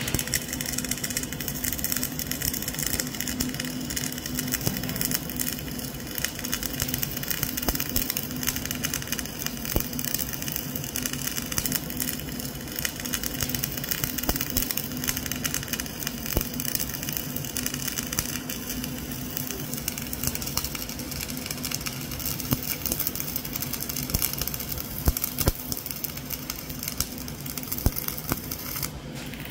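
Flux-cored arc welding arc crackling continuously as a vertical fillet weld is run, dense with sharp clicks over a steady low hum, briefly dropping out near the end.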